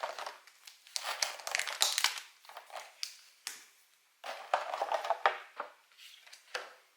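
Packaging from a Pokémon trading card collection box being handled and opened: crinkling and crackling in irregular bursts, with short pauses between them.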